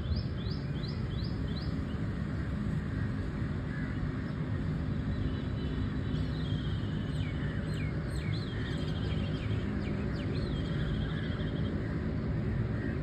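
Small birds singing over a steady low rumble of outdoor background noise. A run of about six quick descending chirps comes in the first two seconds, then varied calls and a trill from about five seconds in.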